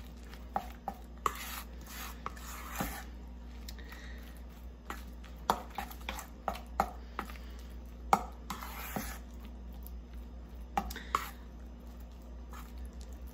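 Spoon stirring a thick pão de queijo dough in a stainless steel bowl: soft scraping through the dough with irregular sharp clinks of the spoon against the metal.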